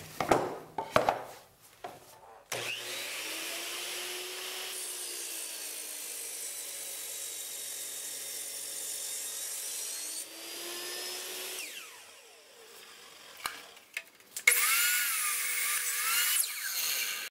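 Electric miter saw cutting maple boards: the motor comes up to speed, runs through a cut and winds down with a falling whine, then makes a second, louder cut near the end in which the motor's pitch dips and recovers as the blade bites the wood.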